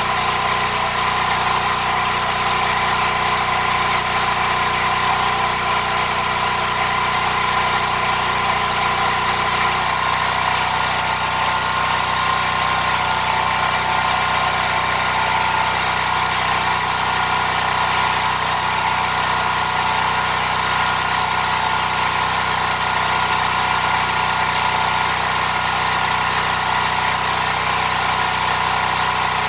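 A machine running steadily: a constant hum with several held tones and a high hiss, unchanging throughout.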